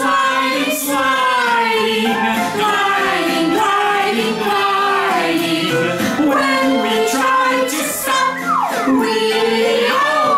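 A children's song sung with music, the voice gliding up and down.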